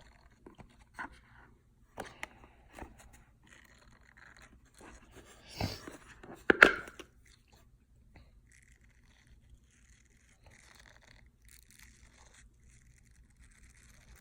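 Scattered handling sounds from an unboxing: light clicks and crinkly rustles of plastic and packaging, with a sharp knock about six and a half seconds in, then only faint rustling.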